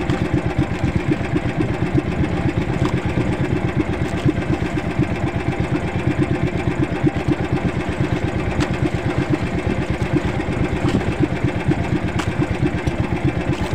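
Small engine of a motorized outrigger boat running steadily, with a fast, even firing pulse.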